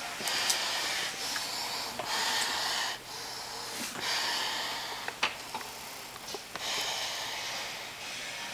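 Heavy breathing through a military gas mask: about four hissing breaths, each about a second long, with a few sharp clicks between them.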